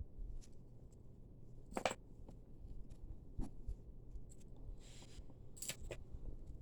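Costume jewelry being handled and untangled: scattered light clicks, with a brief rustle about five seconds in and two sharper clicks, one about two seconds in and one near the end.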